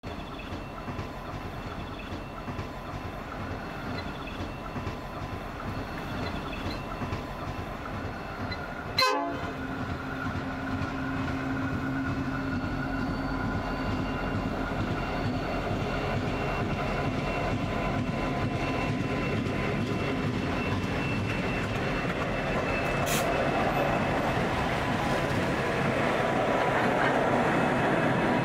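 Two diesel locomotives running light, their engines and wheels growing steadily louder as they approach and pass. A sharp knock comes about nine seconds in, and a steady whine runs for a long stretch after it.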